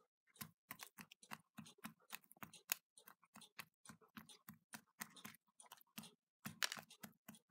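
A chicken's beak pecking chicken scratch off a paving stone: quick, irregular hard taps and clicks, about three or four a second, as grains of cracked corn are picked up. The pecking is faint, with a slightly louder run of pecks near the end.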